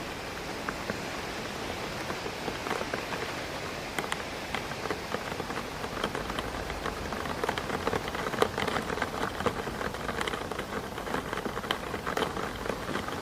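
Rain hitting a window pane: many short, sharp drop ticks over a steady hiss of wind through trees. The drops grow denser about halfway through.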